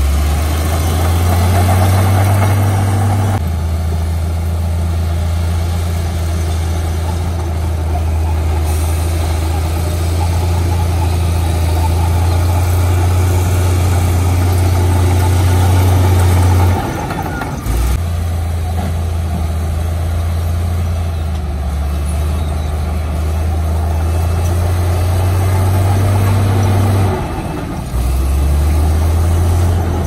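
Heavy diesel engine of earthmoving machinery running steadily with a deep hum. Its tone and level jump abruptly a few times: about 3 seconds in, around 17 to 18 seconds, and around 27 to 28 seconds.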